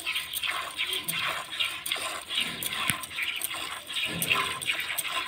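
Milk squirting by hand from a cow's teats into a plastic bucket of frothy milk: a quick train of short hissing spurts, about two to three a second, as the hands pull in turn.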